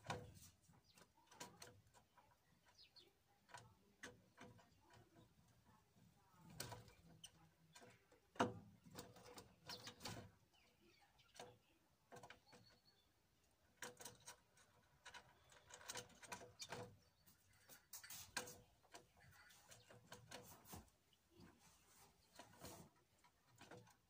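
Great tit pecking at bread in a feeder box: irregular soft taps and clicks, some coming in quick clusters.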